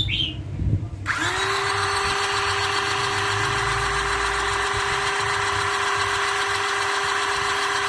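Electric hydraulic cable cutter's pump motor starting about a second in and running with a steady, even-pitched whine.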